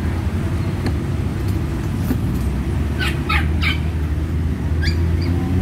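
Steady low rumble of nearby motor traffic, with three short high chirps about three seconds in and another near the end.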